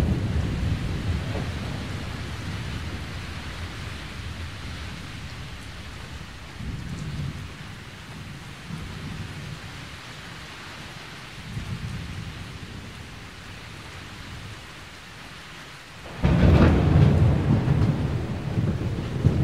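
Thunderstorm: steady rain, with low thunder rumbling every few seconds, and a loud, long peal of thunder breaking out near the end.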